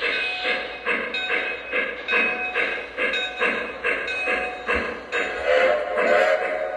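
Lionel Western Maryland Shay model steam locomotive's onboard sound system playing steady steam chuffs, about two and a half per second, as the locomotive rolls slowly along the track. About five seconds in, a held tone of several notes joins the chuffing.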